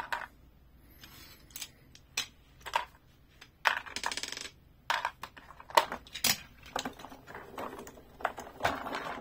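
Plastic clicks, knocks and clatter from a Matchbox Action Drivers transforming excavator toy being handled: its storage compartment is worked, and a small toy vehicle is taken out and set down. A short scraping rattle comes about four seconds in.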